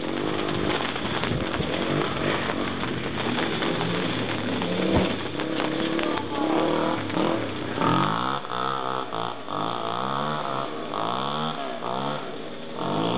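Dirt bike engines revving, the pitch rising and falling again and again as the bikes accelerate and ease off across muddy ground.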